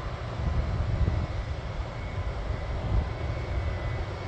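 Distant airplane engine drone carrying across an airfield, over a strong, uneven low rumble, with a faint steady whine.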